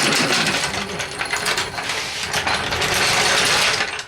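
A steel floor jack's mechanism working, with a dense run of rapid metallic clicking and rattling that cuts off suddenly.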